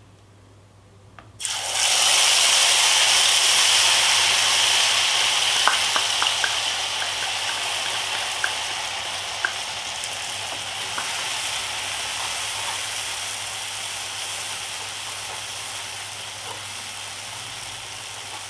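Kashmiri red chilli and turmeric paste, mixed in water, hitting hot oil in a kadhai and sizzling loudly. The sizzle starts suddenly about a second and a half in, has scattered pops, and slowly dies down as the water boils off.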